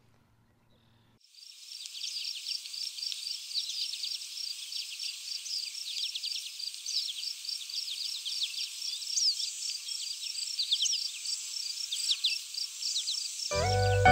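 Insects chirping in a steady high-pitched chorus, pulsing about four to five times a second, with short falling chirps over it. It starts abruptly about a second in, and music comes in near the end.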